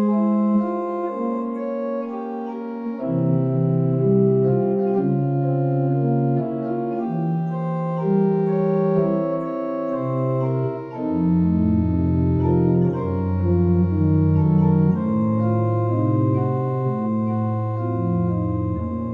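Organ music: slow, held chords that change about once a second. Bass notes come in about three seconds in, and deeper pedal notes from about eleven seconds.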